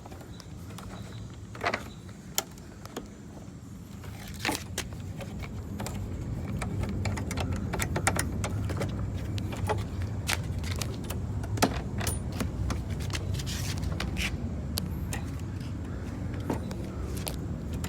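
Scattered metallic clicks and clinks of a lawnmower handle and its fastening nut being handled and worked loose, over a low rumble that grows louder about a quarter of the way in.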